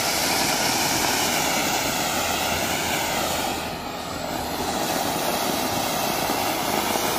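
Ground fountain fireworks spraying sparks with a steady, loud rushing hiss. The hiss dips briefly about four seconds in, then picks up again.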